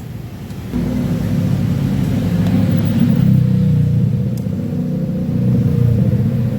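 A motor starts abruptly about a second in and keeps running steadily with a low rumble and a constant hum.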